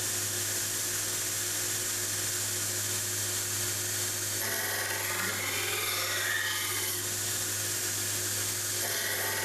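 Power grinder running steadily while roughing in the edge on a knife blank cut from circular saw blade steel. From about four and a half seconds in, a wavering higher whine joins it as the steel is worked against the abrasive.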